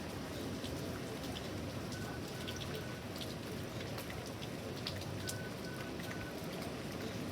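Steady thunderstorm rain, with scattered individual drops tapping close by. A faint high beep sounds three times in quick succession, repeating about every three seconds.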